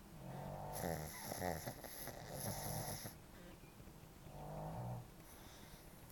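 Shih Tzu snoring in its sleep: a long, fluttering snore, then a shorter one about four seconds in.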